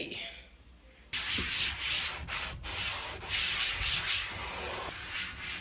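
Scrubbing a kitchen surface: repeated rubbing strokes that start about a second in.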